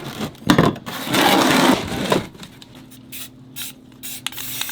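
Aerosol spray paint can spraying: a loud hissing burst about a second in that stops after well under a second, then scattered light clicks and faint hiss as the painting goes on.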